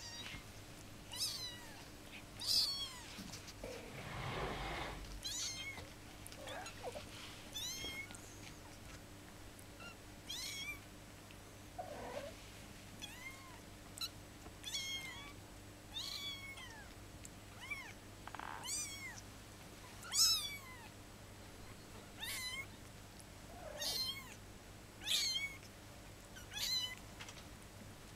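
Fifteen-day-old kittens mewing: a long string of short, high-pitched cries, roughly one a second, with a few lower calls among them.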